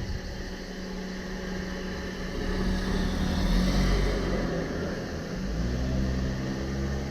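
Street traffic: a vehicle passes, loudest about halfway through, over a steady low engine rumble.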